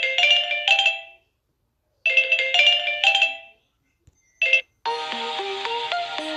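Samsung Galaxy S9 ringtones previewed one after another. A short bright chime melody plays twice with a pause between, a single note sounds and is cut off, and near the end a fuller ringtone melody with lower notes begins.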